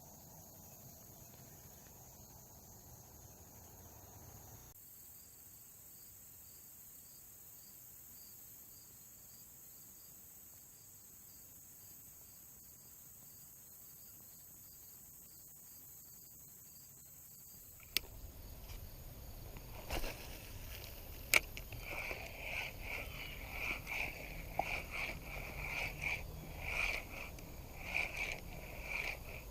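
Insects trilling steadily, with a pulsing chirp joining a few seconds in. About eighteen seconds in there is a sharp click, then a low rumble, more clicks and a run of short, high rasping strokes.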